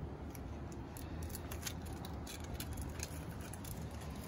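Scissors snipping a small piece of sealing tape for the shed's gable end: a run of quick, irregular light snips and clicks over a low, steady background rumble.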